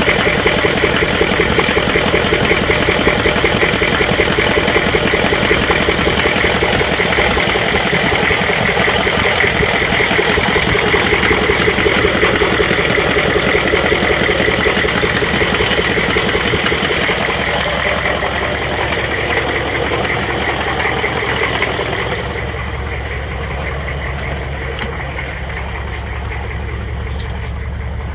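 6.5-litre diesel engine idling with a rapid, uneven beat from a misfiring cylinder. About two-thirds of the way through the sound drops in level and turns duller.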